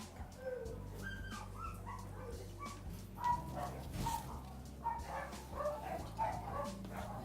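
Several dogs barking and yipping in quick, overlapping bursts, getting busier about halfway through, over a steady low hum.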